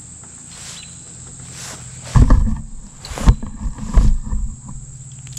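Crickets or other insects keep up a steady high buzz throughout. About two seconds in, a couple of seconds of loud, low rustling and knocking sets in: handling noise from rope and a carabiner being worked close to the microphone as a munter hitch is tied.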